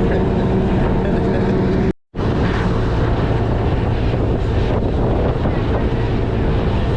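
A fishing boat's engine running steadily, with wind buffeting the microphone. The sound cuts out briefly about two seconds in and then returns unchanged.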